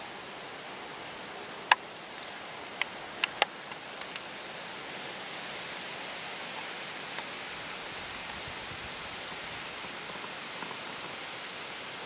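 Steady outdoor hiss beside the pond, with a handful of short sharp clicks between about two and four seconds in.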